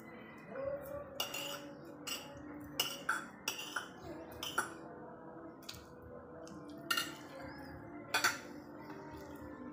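Metal spoon and fork clinking and scraping against a ceramic plate while eating, in a series of irregular sharp clinks, the loudest about 8 seconds in.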